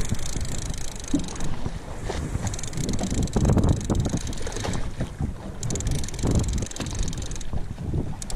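Wind buffeting the microphone on an open boat at sea, an uneven low rumble that swells and eases.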